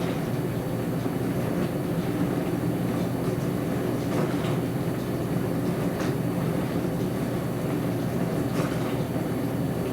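Dishwasher running: a steady, even motor hum with several low tones, and faint swishes a few times along the way.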